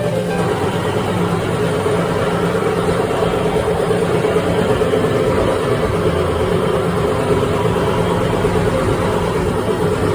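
A motor or engine running steadily and loudly, with no breaks or knocks.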